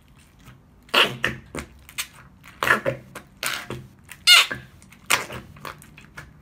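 Fart putty being pushed down into its small plastic tub with a finger, giving a string of short fart noises at uneven intervals.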